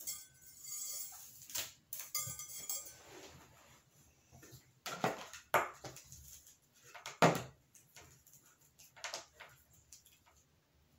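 Handling noise from plastic rhinestone mesh ribbon being shifted and laid over a glass plate: scattered rustles and light clinks, with a few sharper strokes in the middle and later part.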